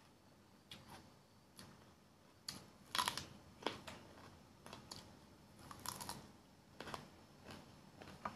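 Close-up mouth sounds of someone biting and chewing crisp raw green sweet pepper: a run of sharp, irregular crunches, the loudest about three seconds in and again near six seconds.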